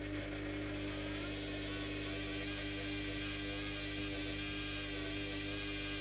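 Bush WMDF612W washing machine mid-wash, a motor inside it kicking in at the start and then running with a steady hum and a higher whine.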